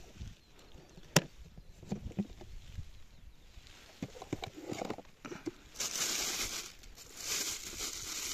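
A sharp click and a few light knocks of handling, then from about six seconds in, plastic bags rustling loudly as they are opened in a plastic bucket.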